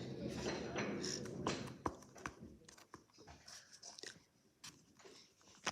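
Hands squishing and gathering Play-Doh, with soft rustling and crackling for the first two seconds, then scattered small clicks and taps.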